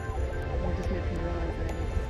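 Music with steady held notes, over a low rumble of wind on the microphone.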